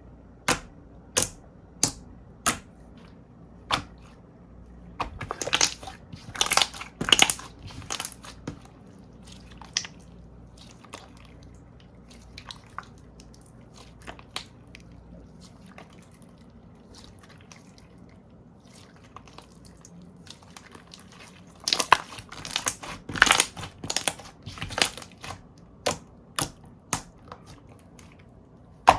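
Slime being pressed and squeezed by hand, giving sharp crunchy clicks and pops, some single and some in quick runs, with a quieter stretch in the middle.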